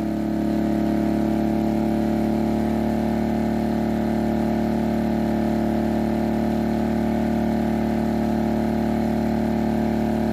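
Heomaito HMT3500iD dual-fuel inverter generator running steadily on propane under heavy load from two heaters, holding an even pitch and handling the load without trouble.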